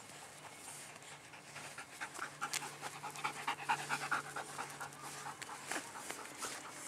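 Belgian Tervuren shepherd dog panting rapidly close by, loudest in the middle.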